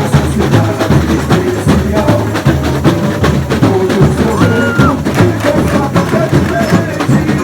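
Samba school bateria playing a driving samba rhythm, dense drum strokes with heavy bass drums underneath, mixed with amplified samba music from the sound truck.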